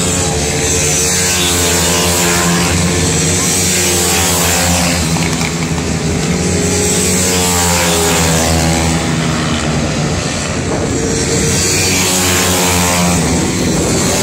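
Several 160 cc four-stroke pit bike engines racing, revving up and down as they shift and pass, with pitches rising and falling over a steady low hum.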